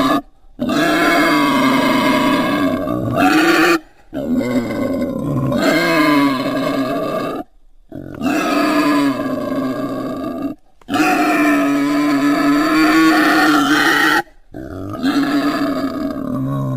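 Wild boar calling: about five long, drawn-out calls of roughly three seconds each, separated by short breaks.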